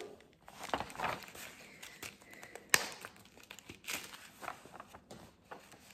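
Clear plastic packaging crinkling as it is handled, with scattered small clicks and one sharper click about halfway through.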